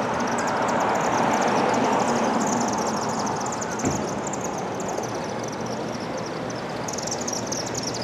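A flock of chimney swifts chittering as they circle: a dense stream of rapid, high-pitched chips, thickest near the end. Under it is a steady rush of background noise that swells in the first two seconds, with a single faint knock about midway.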